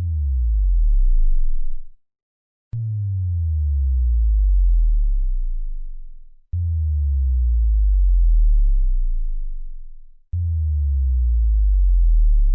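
Synthesized bass drop sound effects, four in a row. Each starts suddenly with a pitch sweeping downward into a very deep sub-bass tone that swells and then fades out over a few seconds.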